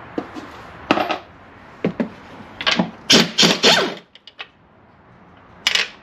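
Irregular metallic clinks and clicks of hand tools and steel bolts being handled, with a quick run of them in the middle.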